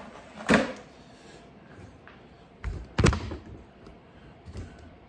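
A few sharp knocks and thunks as a slab of hardened sugar fondant is broken into pieces and put into a bucket, the loudest pair about three seconds in.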